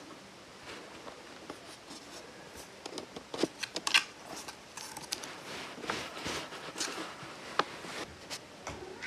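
A kitten's claws scratching and batting at a cardboard tube, making irregular scrapes and clicks. The loudest cluster comes about three to four seconds in, as a paw reaches into the tube.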